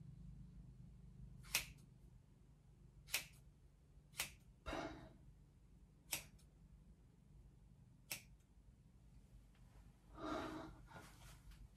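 Scissors snipping through a lock of hair: about six short, crisp snips spaced one to two seconds apart.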